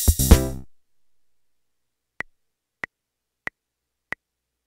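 Casio MT-88 electronic keyboard's ROM-pack auto-play finishes a song, its last chord cutting off under a second in. After a pause come four short electronic ticks at an even tempo, about two thirds of a second apart: a count-in to the next song.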